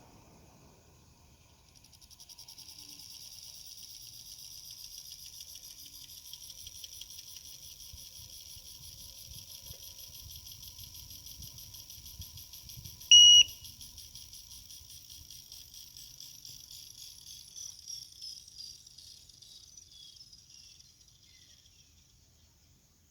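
Xiaomi Air Purifier 3 fan running at low speed with a high-pitched whine and a fast ticking, the fault the owner is showing. A single short, loud beep comes about 13 s in, and the whine drops in pitch and fades out near the end.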